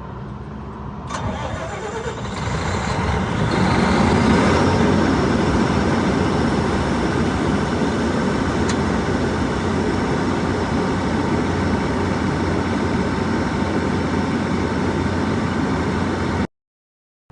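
Magnum MMG480 400 kW diesel generator set starting up: it catches about a second in, builds over the next few seconds with a rising whine, then runs steadily. The sound cuts off suddenly near the end.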